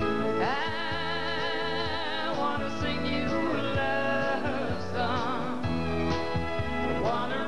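Music: a singing voice with vibrato over band accompaniment, the voice sliding up into a held note about half a second in.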